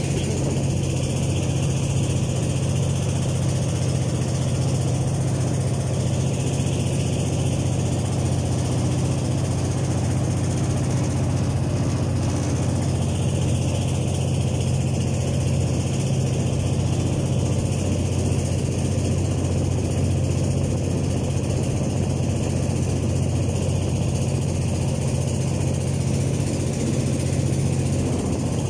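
Boat engine running steadily, a constant low hum with no change in speed.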